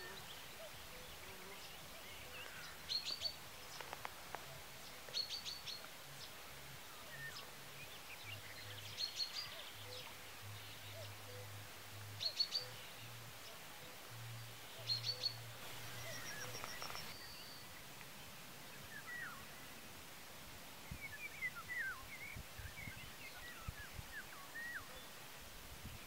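Wild songbirds singing: one bird repeats a short, high phrase every two to three seconds, and scattered chirps from other birds come in near the end, over a faint steady outdoor background.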